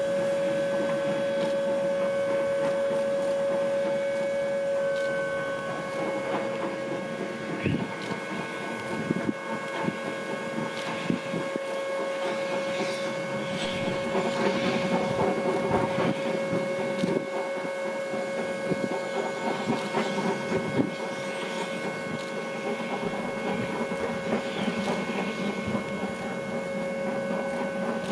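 1910 SLM steam rotary snowplow Xrotd 9213 cutting through deep snow: a rushing, crackling wash of thrown snow with scattered knocks, over a steady whining hum.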